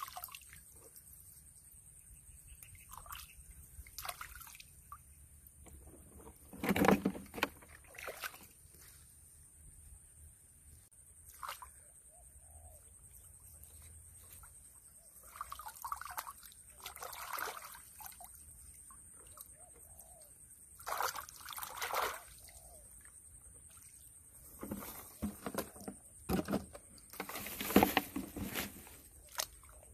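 Shallow water sloshing and splashing in irregular bursts as a person wades and gropes with his hands through a flooded rice paddy, the loudest splashes about seven seconds in and near the end.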